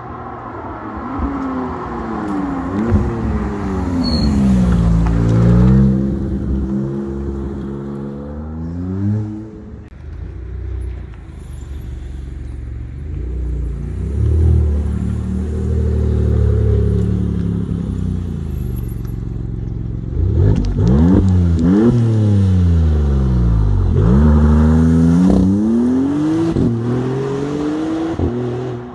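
Maserati MC20's twin-turbo V6 revving repeatedly, its pitch sweeping up and down. In the middle it settles to steadier low running, then revs again with quick rises and falls.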